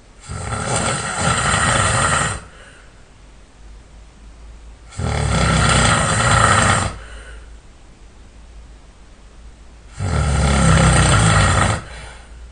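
A person snoring loudly and hard: three long snores of about two seconds each, roughly five seconds apart.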